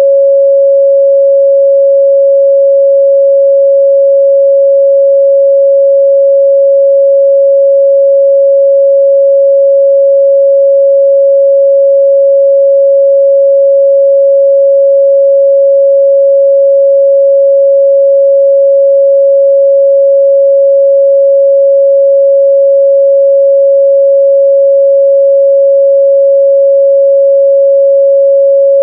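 A steady, loud 553 Hz sine-wave test tone: a single pure pitch held unchanged.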